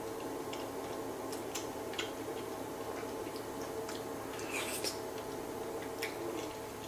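Close-miked eating of pizza and mac and cheese: scattered soft wet clicks and squishes of chewing, over a steady low hum.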